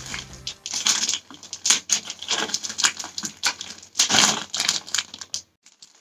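Packaging crinkling and rustling in irregular bursts as a pair of blackout curtains is unpacked and handled. The rustling stops abruptly near the end.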